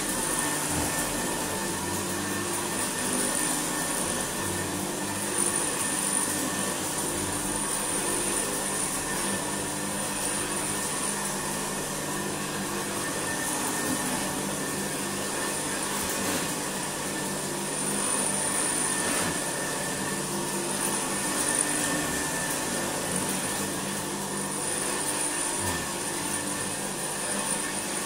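Hoover Senior 652A dirty-fan upright vacuum cleaner running steadily on a thick rug, a constant motor hum with a high whine, picking up fluff and rice.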